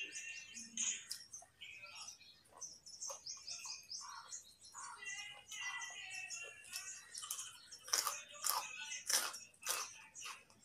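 Birds chirping in the background, then from about eight seconds in a run of sharp, loud crunches as raw carrot is chewed and bitten.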